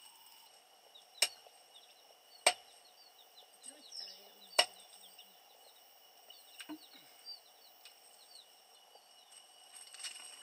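Four sharp knocks or clicks spaced a second or two apart, over faint high chirping and a steady high-pitched hum.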